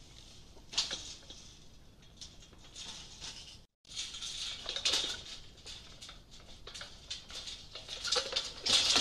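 A Knysna elephant (African bush elephant) moving through the undergrowth beside a metal gate: irregular rustling and crackling of leaves and twigs, with a sharp crack about a second in and louder rustling near the end. The sound cuts out completely for a moment near the middle.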